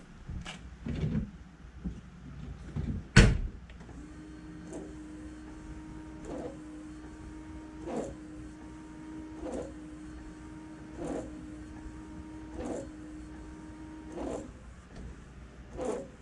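A sharp knock about three seconds in, then a newly fitted windshield wiper motor on a 2015 John Deere 320E skid steer running with a steady hum for about ten seconds, with a knock from the wiper about every one and a half seconds, before it stops.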